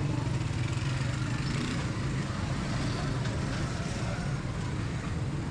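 Busy market street ambience: a steady engine drone from motor traffic, with faint voices in the background.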